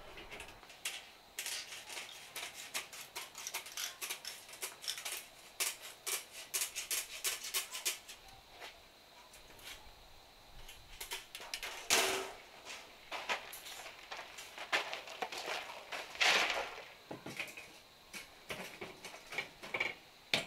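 Wire stucco lath being handled and cut with snips: a run of quick crinkly metal clicks and rattles, with two louder rattling clangs of the lath about twelve and sixteen seconds in.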